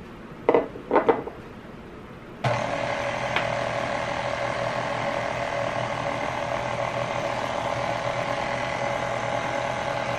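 Two short knocks, then a KitchenAid Ultra Power tilt-head stand mixer switches on about two and a half seconds in and runs steadily with a low motor hum and a gear whine, mixing strawberries into cake batter.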